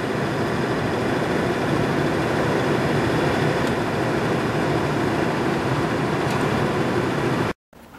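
Electric locomotive of a freight train running with a steady, loud mechanical noise. The noise holds even, with no horn or clanks, between two sudden cuts.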